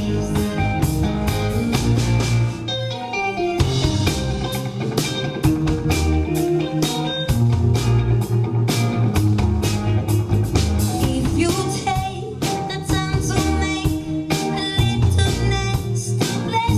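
Live rock band playing with a steady drum beat: drum kit, electric bass, electric guitars and keyboard, with a woman's lead vocal.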